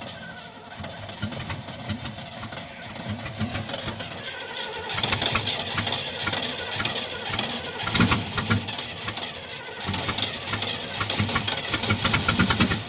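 1975 Oldsmobile's engine being cranked by the starter motor, turning over with a rhythmic chug but not catching: the car won't start. The cranking grows louder about five seconds in.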